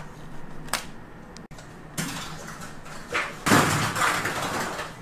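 Light clicks and knocks of a clear plastic claw-machine prize box being handled, then a louder burst of noise about three and a half seconds in.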